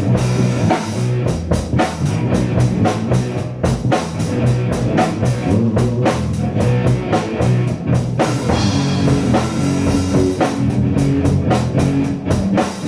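Rock band playing an instrumental improvisation: drum kit keeping a steady beat under guitars.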